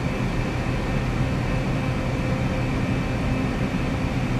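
Steady, loud drone of printing press machinery running, with a constant hum and no changes.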